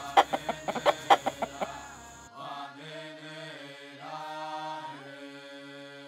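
A rooster clucking in a quick run of about nine sharp clucks over the first two seconds. Then music with long held notes takes over.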